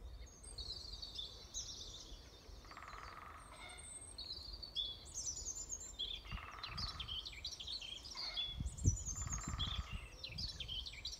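Great spotted woodpecker drumming: three short, very rapid rolls about three seconds apart, each under a second long, the bird staking out its territory. Songbirds sing throughout, over a low rumble with a couple of low thumps in the second half.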